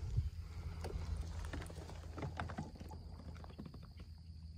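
Quiet water and handling sounds as a largemouth bass is held and eased into the water: scattered faint drips and small splashes over a low steady rumble.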